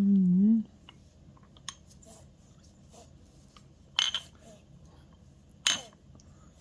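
A spoon clinking against a dish a few times: two sharp clinks about a second and a half apart in the second half, the first the loudest. A short hummed voice trails off just at the start.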